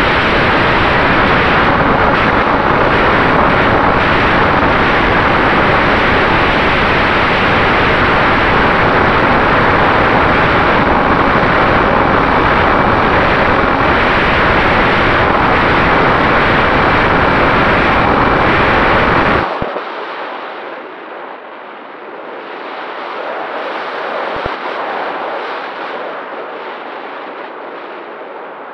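Easy Glider Pro RC glider's electric motor and propeller at full power, heard from a camera just behind the spinning prop: a loud, steady rush of prop wash and wind over the microphone. About two-thirds of the way through, the motor cuts off suddenly, and a quieter wind rush is left as the glider glides with its propeller folded.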